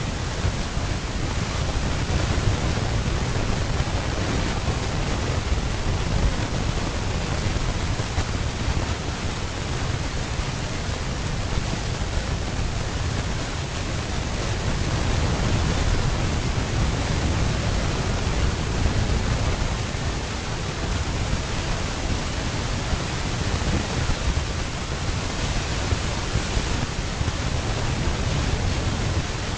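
Steady rushing noise with a heavy, unsteady low rumble and no distinct events.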